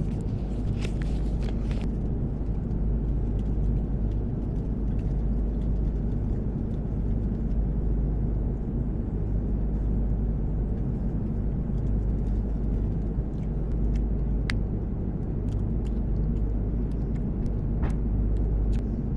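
Steady low drone of an airliner cabin in flight, the even rumble of engines and airflow, with a few faint clicks and rustles of food wrappers being handled on the tray table.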